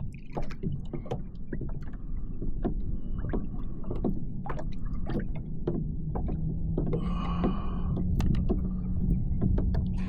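Water lapping and slapping against a kayak's hull, with many small knocks and clicks, over a low rumble. A steady low hum comes in about halfway through.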